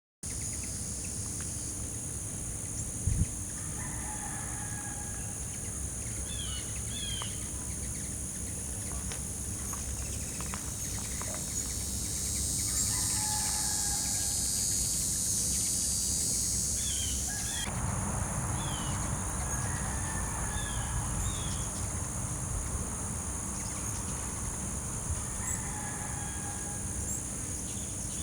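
Outdoor ambience: a steady, high insect drone that swells in the middle and drops back suddenly a little before two-thirds of the way through. Short falling bird chirps and a few longer distant bird calls come every few seconds over it.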